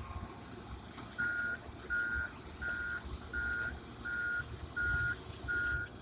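Heavy-equipment backup alarm beeping: seven steady single-pitch beeps at an even pace, starting about a second in, over a low machine rumble.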